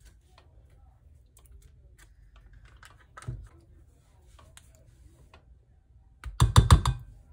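Kitchen prep handling sounds: scattered light clicks and taps, one knock about three seconds in, and a quick run of five or six sharp knocks near the end.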